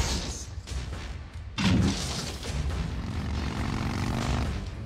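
Film soundtrack: a motorcycle engine running hard as the bike lands and scrapes, sending sparks, with a heavy boom about a second and a half in, then steady engine rumble.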